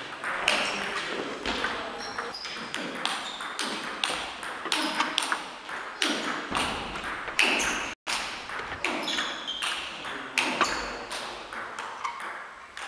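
Table tennis rally: the ball clicks sharply and irregularly, several times a second, off the rackets and the table, with a short ring after each hit in the hall.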